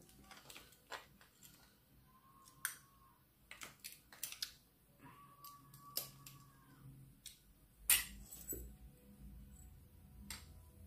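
Spoon and fork clicking and scraping against a plate of soup during a meal: scattered light clicks, with a sharper knock about eight seconds in.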